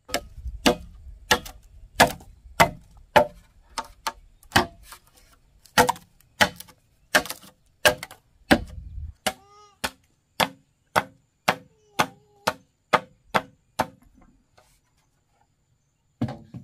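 Machete chopping into the base of a green bamboo pole: a steady run of sharp strikes, about two a second, that stops about 14 seconds in. One more knock comes near the end.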